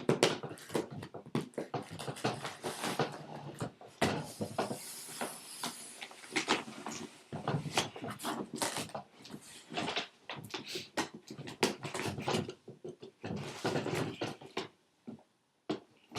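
A cardboard shipping box being opened and unpacked by hand: irregular knocks, scrapes and rustling of cardboard and packing paper, with a longer rustling stretch about four to six seconds in.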